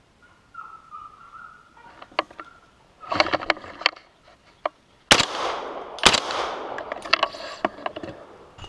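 Two loud gunshots from a hunting gun about a second apart, a little past halfway, each with a long echoing tail: shots at a wild boar. Scattered knocks and rustling come before them.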